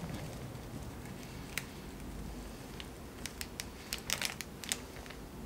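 Small, sharp metal clicks and taps from a Kagen ring roller's mandrel and mechanism being handled as the threaded mandrel is screwed in by hand. A few isolated clicks, then a quick cluster of them about three to five seconds in.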